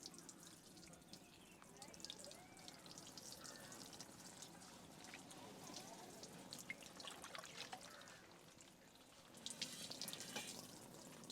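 Faint crackling and rustling of a barber's fingers rubbing through hair and over the scalp during a head massage: many fine ticks, thickening into a louder patch a little after nine seconds in.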